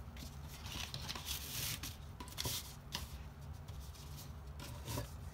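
Sheet of brown paper rustling and sliding on a wooden tabletop as it is smoothed flat, with a few soft knocks as a wooden dowel and small pattern weights are set down on it.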